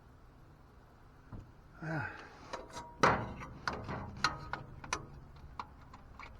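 Handling of metal tools or parts: one loud sharp clank about three seconds in, followed by a quick run of lighter clicks and clinks.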